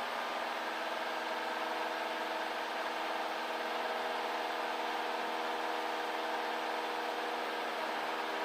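The four-cylinder Lycoming engine and propeller of a Cessna 172 Skyhawk running at steady climb power, heard from the cockpit as an even drone.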